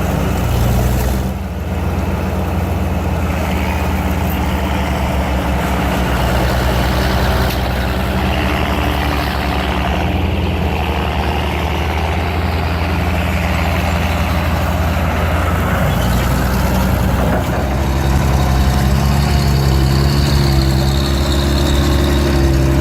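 Heavy diesel engine of old construction machinery running steadily, working through a load cycle. It dips briefly near the start and grows louder and fuller for the last few seconds.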